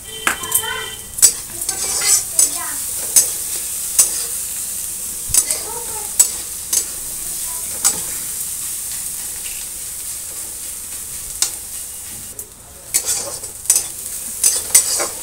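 Chopped onions sizzling in hot oil in a steel kadhai while a metal spatula stirs them, scraping and tapping against the pan about once a second. Near the end there is a quicker run of several taps.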